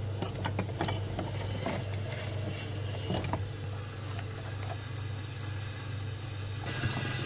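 Objects being moved about on a kitchen cabinet shelf: a run of light clicks and knocks as a glass jug and a cardboard box are shifted and lifted out, thinning out after about three seconds. A steady low hum lies underneath.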